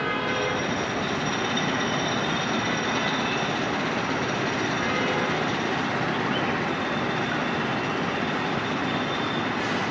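Indian Railways WAP-7 electric locomotive hauling a passenger train as it approaches: a steady rumble and rush of wheels on the track, with a faint high whine over it.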